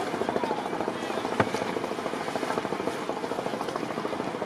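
A boat engine running with a rapid, even chugging pulse. A single sharp knock about a second and a half in.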